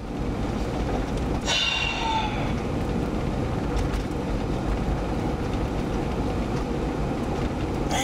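Steady low rumble and hiss inside a car cabin, with a brief high squeak about one and a half seconds in.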